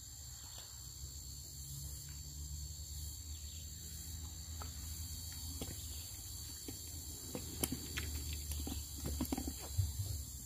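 Steady high-pitched insect trilling over a low rumble, with scattered light clicks and rustles in the second half.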